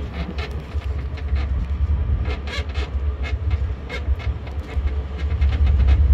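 Land train carriage rumbling along in motion, with a steady low rumble and a constant stream of short rattles and clicks from the carriage's windows and fittings.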